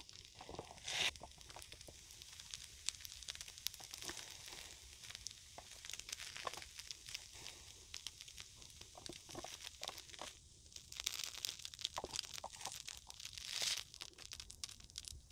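Close-miked crunching and chewing of a waffle-iron-pressed, fried corn cheese cutlet: a run of crisp crackles from the fried coating, with louder crunchy bites about a second in and near the end.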